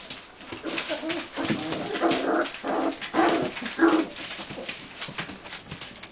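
Four-week-old golden retriever puppies play-fighting: a run of about four short puppy yips and growls in the middle, the last the loudest, over the crackle of newspaper being scrabbled on.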